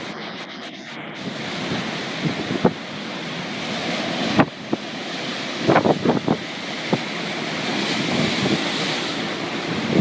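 Storm waves breaking on a coast, with strong wind rushing over the microphone; the noise slowly builds, with a sharp knock about four seconds in and a few more short hits around six seconds.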